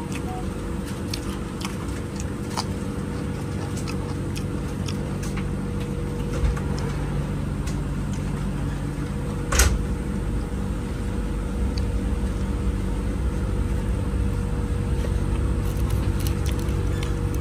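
Steady rumble and hum of a moving train heard inside the passenger car. Light clicks and rustles of plastic food packaging and a plastic spoon being handled sit on top, with one sharper knock about ten seconds in.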